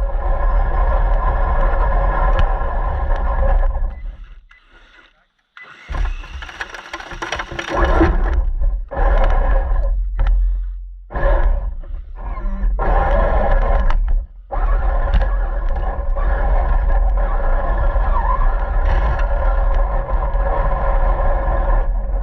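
RC car running with a steady motor whine over a rumble from the drive and tyres. It stops for about two seconds near four seconds in, and cuts out briefly a few more times.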